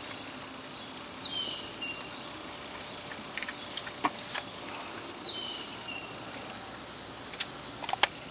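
Steady, high-pitched chorus of insects trilling in a rapid pulse. A bird gives two short whistled calls that slide downward, about four seconds apart, and there are a few light clicks near the middle and the end.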